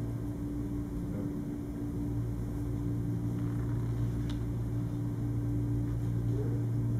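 Room tone: a steady low hum with a faint click a little past four seconds.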